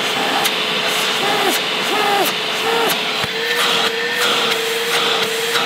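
Milwaukee M18 cordless wet/dry vacuum running steadily: a motor whine under the rush of air through the hose.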